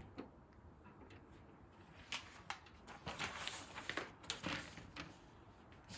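Faint rustling and crinkling of paper or plastic packaging being handled, with scattered light clicks, mostly in the middle few seconds.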